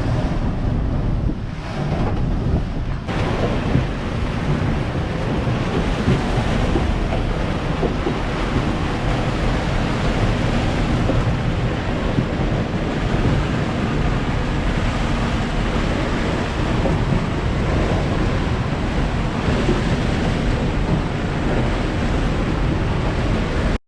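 Strong wind blowing over the microphone and waves washing around a sailing catamaran at sea. It is a loud, steady rush that fills out and grows louder about three seconds in.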